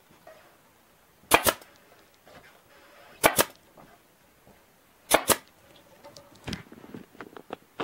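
Staple gun firing three times, about two seconds apart, each shot a sharp double crack as it drives a staple through the stretched deer hide. Lighter clicks and handling noises follow near the end.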